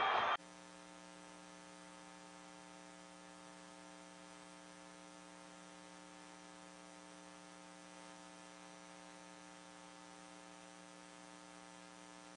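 Faint, steady electrical hum made of several even tones, left behind after the match audio cuts off abruptly less than half a second in.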